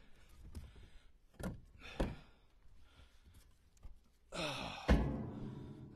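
Split pieces of seasoned red oak firewood knocking together as they are stacked in a pickup bed: two sharp knocks about a second and a half and two seconds in, and a loud thunk near the end. Around that last thunk, a man lets out a heavy breathy exhale.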